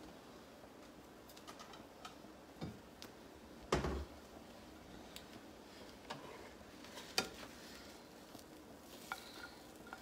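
A plastic spatula scraping and lifting scrambled eggs off a stovetop griddle onto a plate, with scattered knocks and clinks of utensils and dishes over a faint sizzle. The loudest knock comes about four seconds in, another about seven seconds in.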